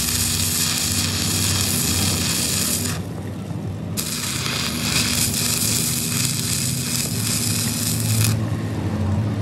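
Stick arc welding on a broken heavy truck front axle: the electrode's arc crackles and sizzles steadily. The crackle drops away for about a second around three seconds in and again near the end. A low steady hum runs underneath.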